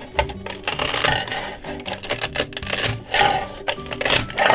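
Toy cutter scraping and cutting through Play-Doh pizza on a hard plastic surface, in a run of quick rubbing strokes.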